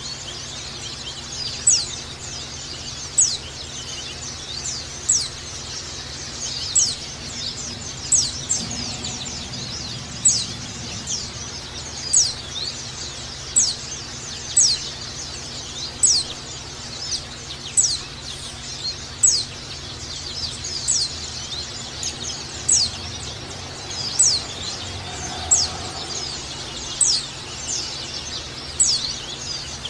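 White-eye (pleci) chirping: sharp high notes that drop in pitch come about once a second over a steady run of fainter high chatter, with a low steady hum underneath.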